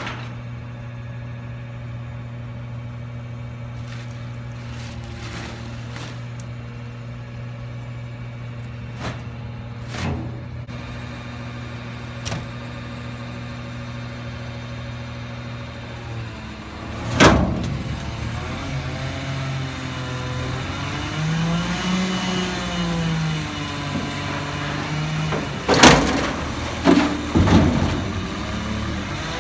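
Front-loader garbage truck idling steadily, with occasional knocks as trash bags go into its front container. About 17 seconds in there is a loud bang, then the engine revs up and down as the hydraulic forks lift the container over the cab. Near the end come several loud bangs as the container is dumped.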